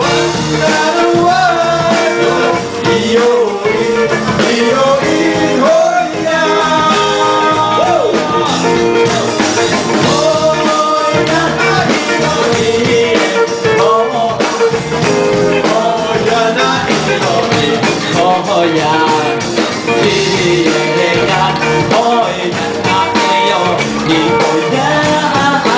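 A pop song played by a band, with singing, continuing at a steady loud level.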